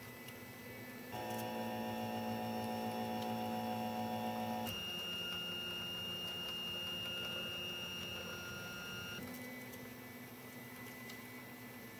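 Stepper motors of a RepStrap 3D printer whining steadily as they drive the extruder carriage and print bed through a test pattern. The pitch jumps to a new set of steady tones with each new move: about a second in, near the middle, and again about three quarters through.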